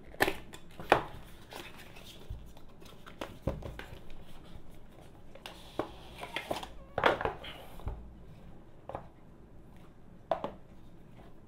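Cardboard smartwatch box being worked open by hand: the stiff outer sleeve slid off and the cover lifted away. Scattered sharp knocks and taps of card, with rustling and scraping between them.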